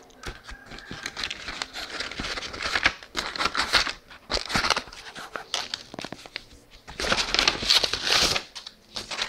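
A paper envelope being torn open and the printed leaflets inside pulled out, paper crinkling and rustling in irregular bursts, with the busiest stretch near the end.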